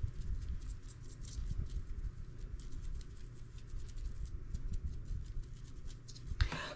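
Faint scratching and light tapping of a fine paintbrush dabbing shimmer powder onto a clay-covered vase, over a low steady rumble, with a brief louder noise near the end.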